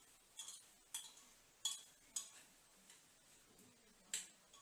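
A metal spoon clinking against the side of a pressure cooker while mashing cooked yam: five faint, sharp clinks, mostly about half a second apart, with a longer gap before the last.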